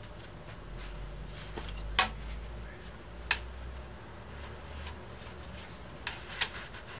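Hard clicks and knocks of tools and parts being handled on a workbench while braces are glued to a guitar top. There is one sharp knock about two seconds in, a lighter one a second later, and two close together near the end, over a low hum.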